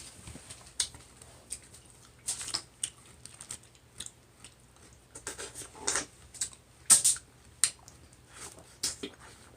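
Close-up eating sounds of a seafood boil: irregular sharp clicks and short crackles of shells being handled and broken, with chewing and lip smacks.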